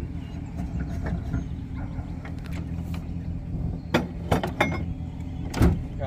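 An engine idling steadily, with several sharp metal clanks from the trailer coupler and hitch being fitted, the loudest one near the end.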